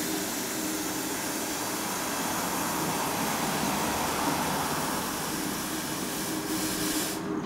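A steady hiss with a low hum under it. The hiss cuts off abruptly near the end, leaving the hum.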